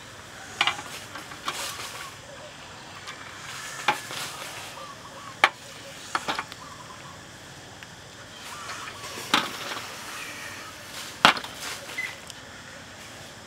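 Grilled shellfish shells being set down one at a time on a stainless steel tray, giving sharp clinks and knocks about every one to two seconds, against a low steady background.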